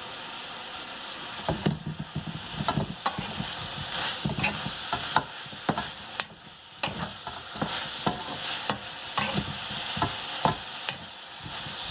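A wooden spatula scrapes and knocks irregularly against a steel wok as pork and vegetables are stir-fried, over a steady sizzle of frying.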